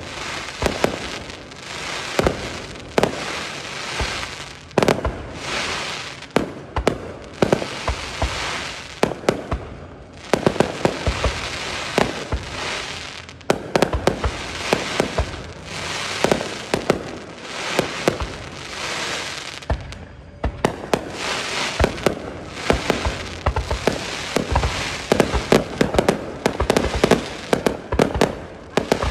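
Aerial fireworks display: shells launching and bursting in a dense string of bangs, several a second at times, over a continuous crackle and hiss of burning sparks.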